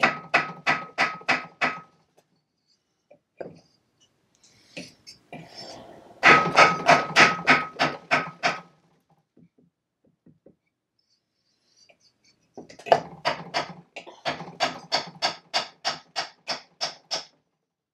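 A mallet tapping repeatedly on the metal housing of an electric motor, working the end bell loose. The knocks come in three quick runs of about four or five blows a second, and the first two runs carry a faint metallic ring.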